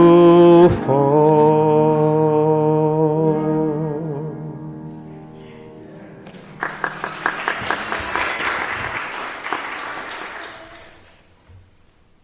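A man's voice and an upright piano holding the last note of a spiritual; the note dies away over a few seconds. About six and a half seconds in, a congregation starts clapping, and the applause fades out near the end.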